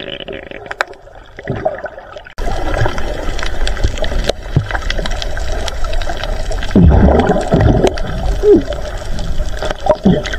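Water gurgling and rushing around a camera held underwater, muffled and rumbling, with a sudden jump in loudness about two seconds in.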